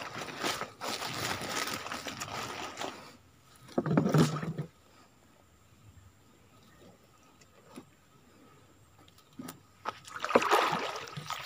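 Rustling, scraping and knocking as a wire-mesh fish trap is handled and closed up inside a small boat, with a short louder knock about four seconds in. After that it goes almost quiet, with a few faint clicks, and the handling noise picks up again near the end.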